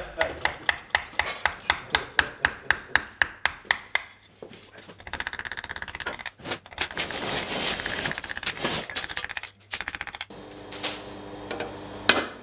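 A narrow hand tool cutting and scraping a wooden sword-grip blank clamped in a vice: quick, regular strokes at about five a second, then rougher scraping. Near the end there are a couple of sharp metallic taps at the sword's hilt.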